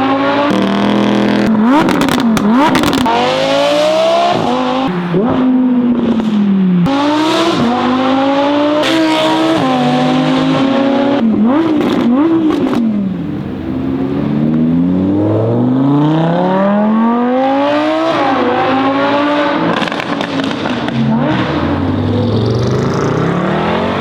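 Audi R8 V10 Performance's V10 engine through an aftermarket Capristo exhaust, loud, accelerating hard again and again, its pitch climbing through the revs and dropping on shifts and lifts. There are several sharp crackles on the overrun, mostly in the first half.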